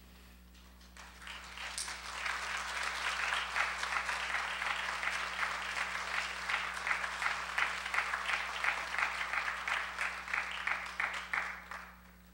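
Audience applauding. It swells about a second in and holds steady, then thins into separate, rhythmic claps before stopping near the end.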